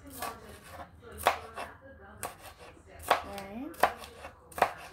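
Kitchen knife chopping vegetables on a cutting board, dicing onion and peppers: a string of sharp knocks of the blade on the board, roughly one a second, with lighter cuts between.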